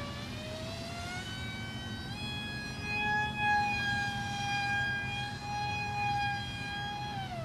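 Whine of a small RC foam airplane's electric motor and propeller in flight overhead. The pitch climbs over the first two seconds as the motor speeds up, holds steady, then drops just before the end as it slows.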